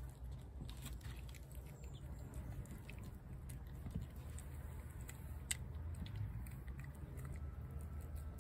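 A feral cat chewing wet food from a plate, with small scattered clicks of teeth and plate, over a low steady rumble.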